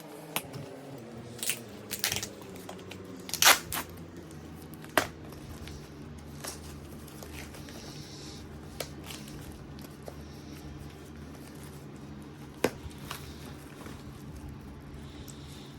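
A small cardboard box being opened by hand: tearing and crinkling, with scattered sharp clicks and knocks, the loudest about three and a half seconds in. A steady low hum runs underneath.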